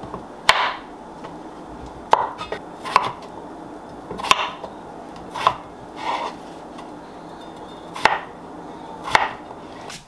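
Chef's knife slicing an onion on a wooden cutting board: about eight slow, unevenly spaced cuts, each a sharp knock of the blade reaching the board.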